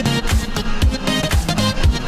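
Background music with a steady dance beat.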